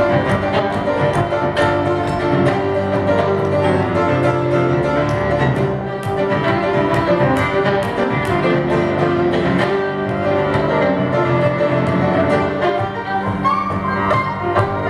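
Fiddle and grand piano playing a tune together live, the fiddle carrying the melody over piano chords with a steady beat.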